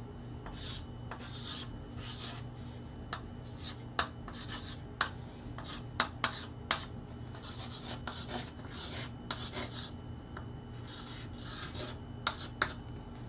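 Chalk writing on a chalkboard: a run of short scratchy strokes as the letters are drawn, with sharp taps where the chalk meets the board, over a faint steady hum.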